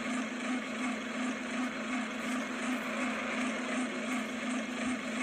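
Steady street traffic ambience: a low, even engine hum under a wash of traffic noise.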